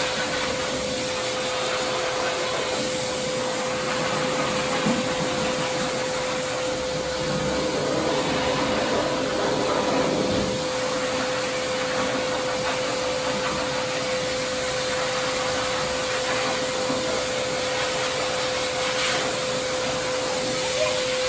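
Pet blow dryer at a self-serve dog wash running steadily, air rushing through its hose with a steady whine as it is worked over a wet dog's coat.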